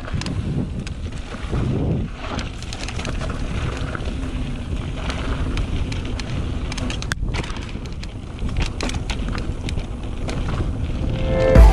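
Wind buffeting the microphone over the rumble of a mountain bike riding down a dirt trail, with frequent small clicks and rattles.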